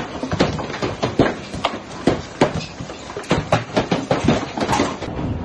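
Large hailstones pelting a terrace roof and patio floor in a violent hailstorm: a hiss of falling hail with loud, irregular cracks of single stones striking, several a second.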